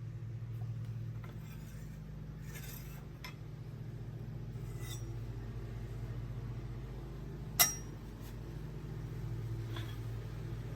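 Kitchen knives and their wooden block being handled: a few light clicks, then one sharp metallic clink about three-quarters of the way through, over a steady low hum.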